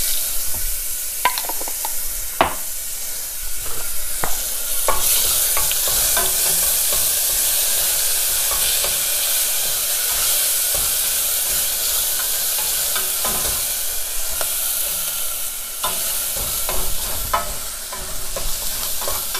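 Minced garlic sizzling in hot oil in a stainless steel pot, stirred with a wooden spoon, with a few short knocks along the way.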